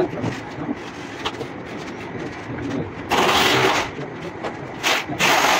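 A handheld power drill runs in three short bursts: one of about a second, then two brief ones near the end, with lower clatter of work between them.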